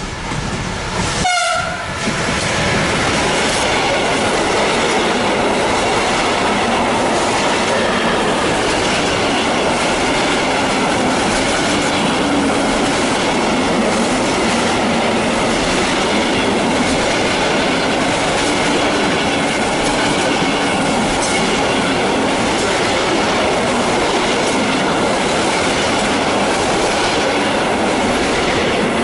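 Siemens Vectron electric locomotive sounding a short horn blast at the start, then a long freight train of container wagons passing close by: steady, loud wheel rumble with clickety-clack over the rail joints.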